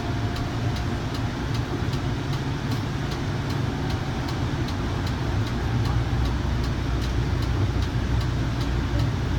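Kinki Sharyo light rail car running at speed, heard from inside: a steady low rumble of the wheels on the rails, growing heavier about halfway through, with faint regular ticking about three times a second.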